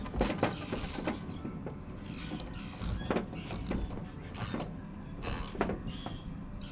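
Irregular metal clicks and clinks of hand tools, a carriage bolt and a light-mounting bracket being fitted and tightened.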